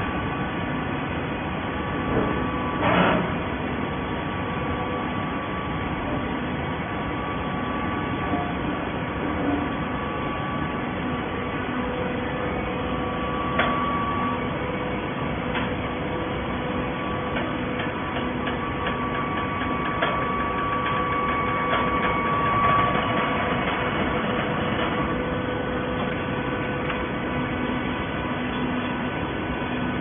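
Automatic-tie horizontal baler line running: a steady mechanical drone with a constant hum, broken by a few sharp clanks, the loudest about three seconds in.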